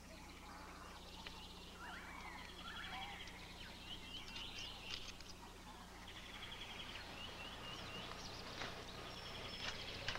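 Jungle ambience of assorted birds calling: short chirps, swooping whistled calls and rapid trills, scattered throughout, over a faint steady low hum.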